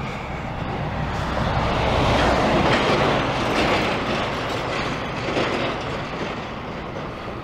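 A large vehicle passing close by: its noise swells to a peak about two to three seconds in, then slowly fades, with a low rumble underneath.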